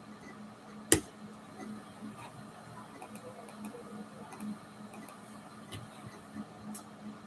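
Computer keyboard and mouse being used: a scatter of faint clicks and key taps with one sharp click about a second in, over a steady low hum.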